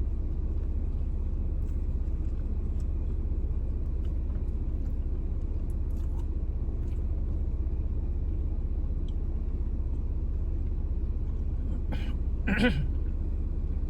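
Steady low rumble of a car heard from inside the cabin, the engine idling. A short vocal sound comes near the end.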